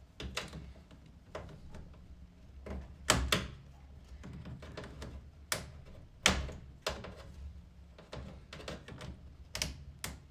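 Irregular plastic clicks and knocks as a hose and its spring clamp are worked off a washing machine's drain pump, with two sharper knocks about three and six seconds in.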